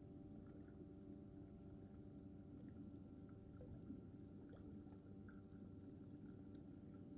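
Near silence: a faint steady low hum with a few tiny, faint ticks scattered through it.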